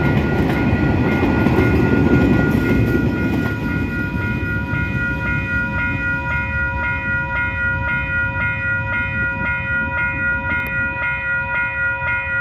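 Freight wagons rumbling over the level crossing, fading about three and a half seconds in. The crossing's warning bells keep ringing in an even pulse of about two strokes a second.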